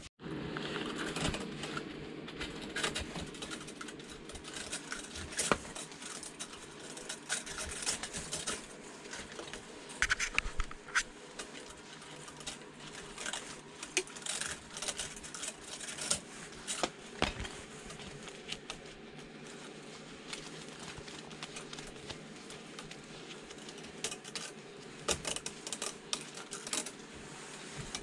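Irregular clicks, taps and metal clinks of hand tools and loose hardware as an old amplifier is taken apart, over a steady low hum.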